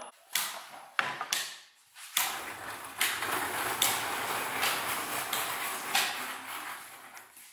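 Metal bar clamps on a glued-up wood panel being handled and tightened. There are a few sharp clicks, then from about two seconds in a steady metallic rattling with clicks that fades near the end.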